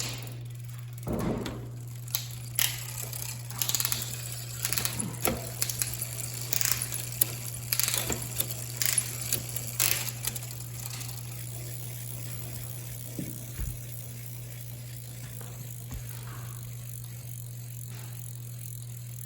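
Bicycle drivetrain clicking and rattling as the cranks are turned and the shifter and derailleur are worked back and forth to free a sluggish, freshly lubed shift cable. The clicking is dense for about the first ten seconds, then thins to a few faint clicks over a steady low hum.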